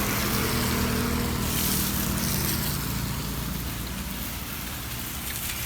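A vehicle engine running steadily over street noise, its hum dying away about three and a half seconds in.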